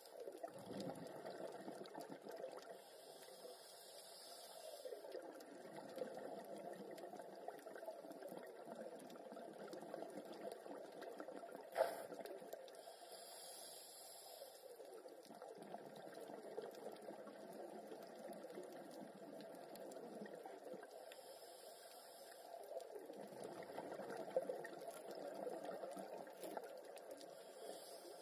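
Scuba diver's breathing through a regulator underwater: bubbling and hissing that swells and fades every several seconds. A single sharp click about twelve seconds in.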